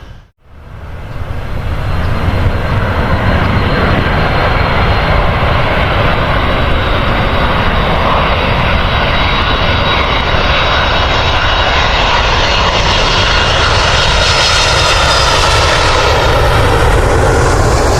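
Airliner engines running loud and close, a steady rush with a high whine that brightens near the end. It starts after a brief dropout right at the beginning.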